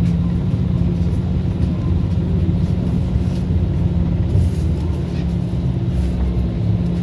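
Cabin noise of a moving SVARZ-6235 trolleybus: a steady low rumble from the tyres and running gear with a constant low hum underneath.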